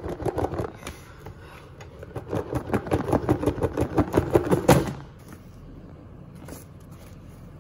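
A tight-fitting rigid cardboard box lid being shaken and worked loose by hand: a quick run of scraping and rattling strokes that ends in a sharper knock about five seconds in as the lid comes free, followed by light handling.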